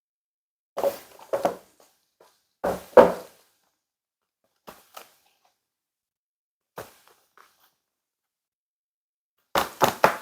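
A series of short handling knocks and thunks, the loudest pair about three seconds in and another pair near the end, with quiet between, as of a portable laptop desk being handled and set up.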